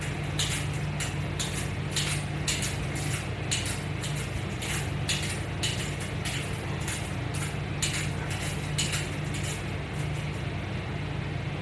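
Light metallic clinking about twice a second: the clips and hardware of a resistance-band latch bar system knocking with each repetition of an exercise.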